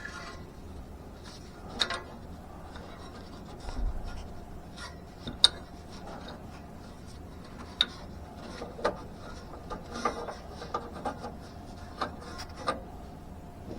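Hands working at an oxygen sensor's wiring connector under a car: scattered light clicks and taps with rubbing in between, a few sharper ticks among them.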